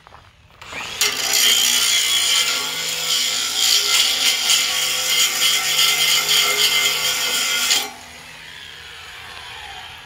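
Angle grinder spinning up and grinding on a steel upright of a log-truck bunk: a loud, steady grinding with ringing tones. Near the end the grinder is lifted off the metal, and the motor runs on free with a falling whine.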